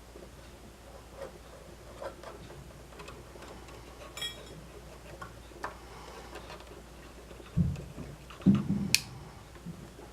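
Scattered light clicks and taps of hand tools and parts during soldering work on a tube amplifier's circuit, with a couple of louder knocks near the end.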